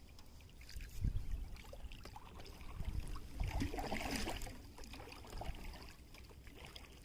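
Lake water lapping and trickling against a kayak hull, with low gusts of wind buffeting the microphone. A brief splashy stretch comes about four seconds in.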